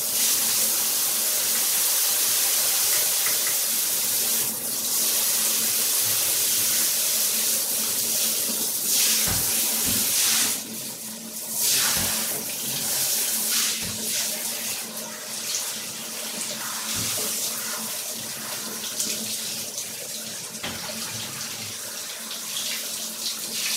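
Water spraying from a handheld bath shower head and splashing into the tub and over hair being wetted, a steady rush that shifts as the spray is moved, with a few brief low bumps.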